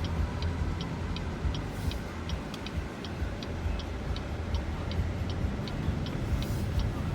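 Car interior with steady low road and engine rumble, and a car's turn-signal indicator ticking evenly, a little under three ticks a second.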